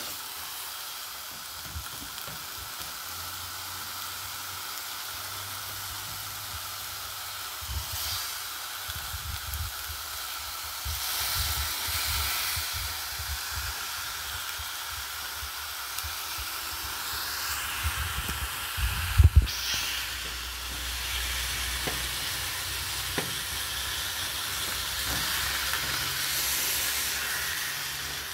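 Frozen ground beef patties sizzling in a frying pan with no oil, a steady hiss. Now and then a spatula scrapes and knocks against the pan, loudest twice in quick succession about two-thirds of the way through.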